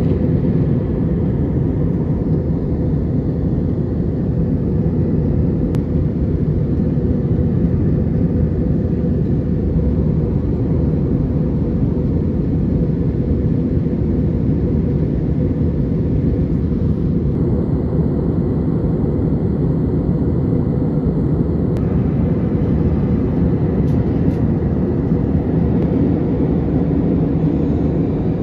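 Steady low rumble of jet engines and rushing air inside the cabin of an Airbus A320-family airliner in flight.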